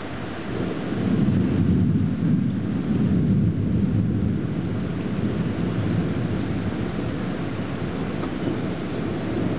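Thunder rolling in a long, continuous rumble over steady rain. The rumble swells about half a second in and keeps going, building again near the end.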